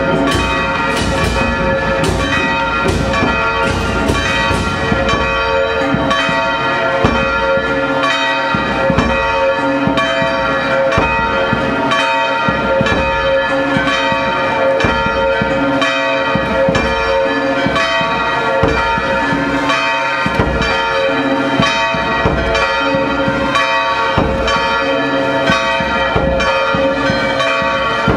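Church bells ringing in a continuous peal, many overlapping tones struck again and again.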